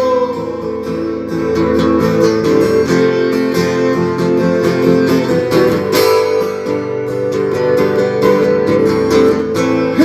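Instrumental break in a country song: acoustic guitar strumming steadily, with no singing.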